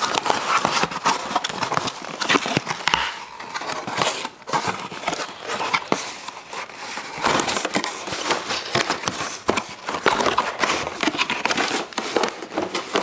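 Paper and a cardboard shipping box being handled: close rustling and crinkling with many short knocks and taps, as the packed figure is lifted out of the box.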